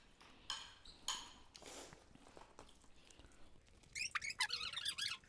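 Faint scrapes and rustles of people eating from plates, then near the end a quick run of high, wavering squeaky chirps, the loudest sound here.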